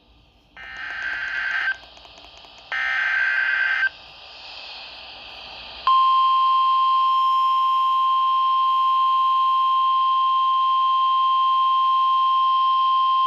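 Two harsh, buzzing one-second bursts of SAME digital header data from a NOAA Weather Radio alert, with radio hiss between them. About six seconds in comes the 1050 Hz NOAA Weather Radio warning alarm tone, a steady single-pitch tone that marks the start of a weather alert broadcast.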